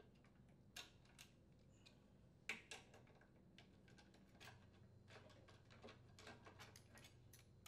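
Faint, scattered metal clicks of a nut driver working the carburetor mounting bolts on a Briggs & Stratton lawn mower engine, one a little louder about two and a half seconds in, then a run of small ticks in the second half.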